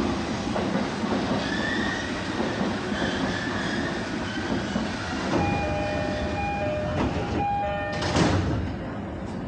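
Commuter train standing at a platform with its doors open, then the door-closing chime: a repeated two-note ding-dong starting about five seconds in. Just after eight seconds there is a short loud burst of noise as the doors shut, and the train goes a little quieter.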